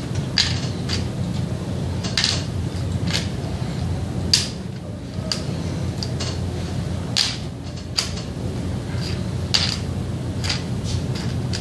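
Small plastic hue-test caps clicking as they are set one by one into a plastic tray, about a dozen irregular clicks roughly a second apart, over a steady low hum.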